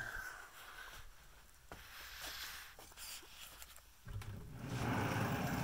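A few faint ticks, then from about four seconds in a steady rustling noise as the phone is moved around: handling noise.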